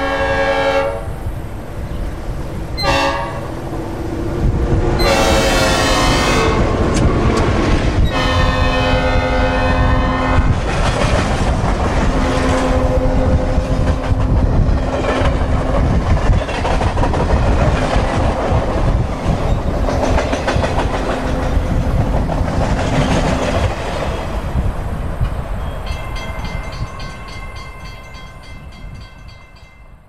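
Synthesized recreation of a Nathan P5 'old cast' five-chime locomotive air horn with a passing-train Doppler effect: a series of horn blasts whose pitch drops as the train passes about five to seven seconds in, the later blasts lower. Train rumble and rail clatter run under the blasts and fade away toward the end.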